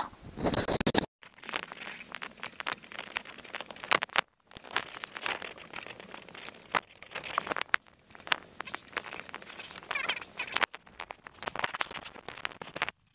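Irregular clicking, tapping and rattling of hand tools and small metal parts worked at an engine's open distributor, broken by a few sudden cuts.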